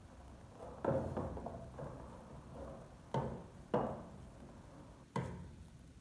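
Wooden spoon knocking against the side of a large metal cooking pot while spaghetti is stirred and tossed: four sharp knocks at uneven intervals, with soft rustling of the noodles between.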